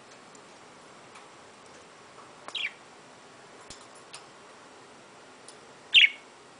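Budgerigars giving two short chirps that fall in pitch, the second louder, about three and a half seconds apart, with a few faint ticks between them.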